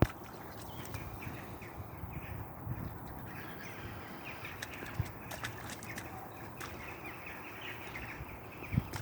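Short, scattered bird chirps over a low rumble, with two thumps: one about halfway and one near the end.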